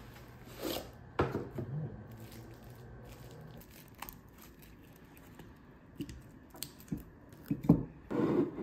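Plastic cling wrap crinkling and tearing as slices of a frozen-hard cheesecake are pulled out of it, in short scattered bursts, with a couple of louder bumps near the end.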